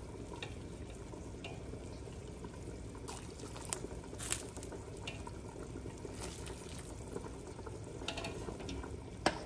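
Steady hiss of rain, with a few short eating sounds over it as a bowl of pho broth is eaten: about four seconds in, twice close together, and again near the end.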